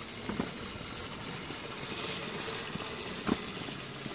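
Small wheels of a Razor Power Rider electric trike rolling and rattling on concrete as it is pushed by hand with its motor off, with a couple of light knocks.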